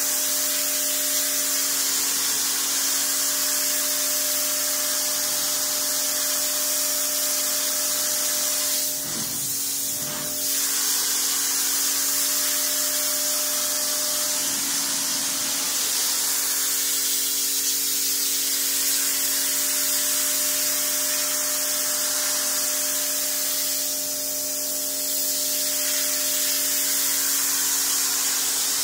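Pressure washer's high-pressure water jet spraying a mossy brick wall: a steady, loud hiss with a steady hum underneath, easing off briefly twice.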